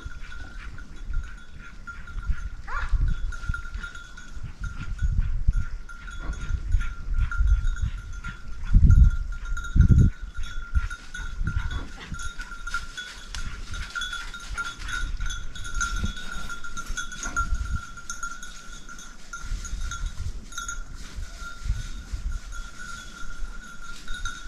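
A bell ringing steadily and unbroken, with irregular low bumps and rumble underneath that are loudest about nine and ten seconds in.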